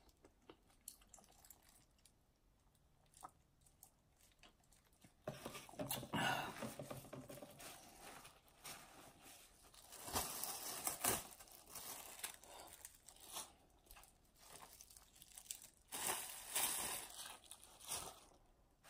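Thin disposable plastic gloves crinkling and rustling as they are peeled off greasy hands. The crinkling comes in irregular bursts, starting about five seconds in.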